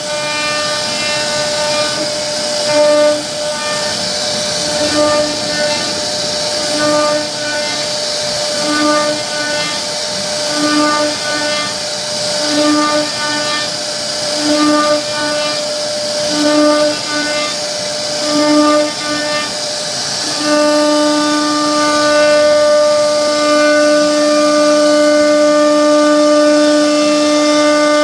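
CNC router spindle cutting into a wooden door panel: a high, steady whine that swells about every two seconds as the bit cuts a row of round recesses. Near the end it settles into a continuous, slightly louder whine.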